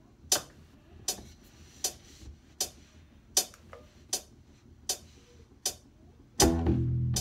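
Metronome clicking evenly, about 80 beats a minute, as a count-in. About six and a half seconds in, a bass ukulele starts playing low plucked notes of a funk line.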